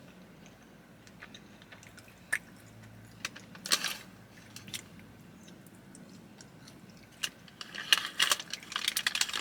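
A person biting and chewing a blueberry sugar cookie close to the microphone: scattered soft clicks, with a denser run of chewing sounds near the end.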